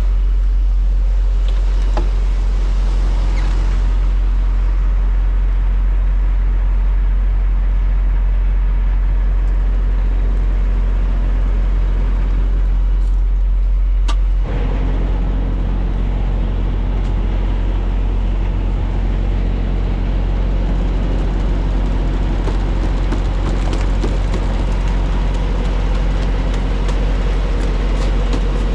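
Semi-truck running, heard from inside the cab: a steady low engine drone with road or air noise. About halfway through there is a click, and the drone shifts to a rougher mix with more rushing noise.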